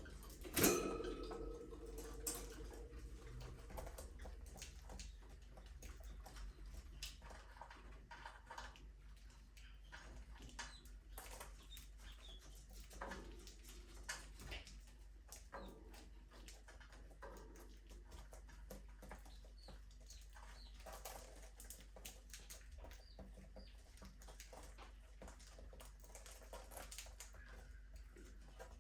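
Budgerigars in a cage, faint scattered chirps among many small pecking and scratching clicks. A sharp knock with a brief ringing tone about half a second in is the loudest sound.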